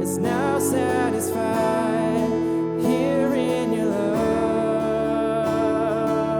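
Worship music led by strummed acoustic guitar, with a sung or held melody line over sustained chords that change about a second and a half in and again about four seconds in.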